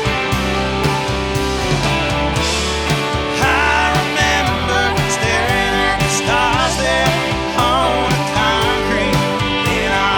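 Live rock band playing an instrumental passage: drums and bass keep a steady beat while a lead melody line bends and wavers in pitch from about three seconds in.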